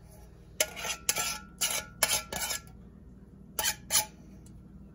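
Metal coconut-milk can clinking and scraping against a nonstick wok as the milk is emptied out: a run of short clinks in the first half, a pause, then two more clinks.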